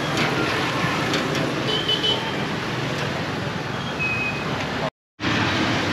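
Steady street traffic noise of passing motorbikes and cars, with a couple of short high beeps. The sound cuts out completely for a moment near the end.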